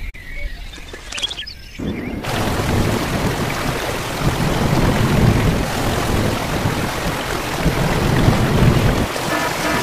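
Heavy rain begins about two seconds in and holds as a steady hiss, with low swelling rumbles beneath it. Music with steady tones comes in near the end.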